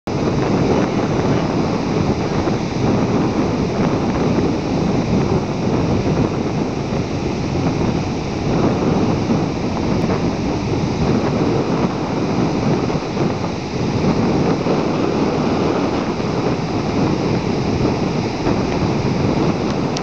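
Sloppy, wind-chopped ocean surf breaking along the shore: a continuous rushing noise that swells and eases.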